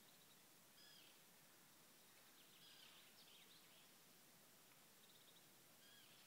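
Faint birds calling: short high chirps about a second in and near the end, with a quick run of notes about three seconds in, over a steady faint hiss.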